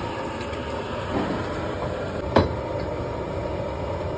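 Steady rushing roar of an LPG pressure burner under a large aluminium cooking pot, with one sharp knock about two and a half seconds in.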